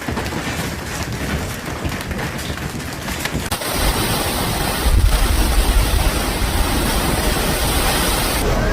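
Storm noise: heavy rain and strong wind rushing steadily, with a low rumble. About three and a half seconds in it jumps to a louder, deeper rush.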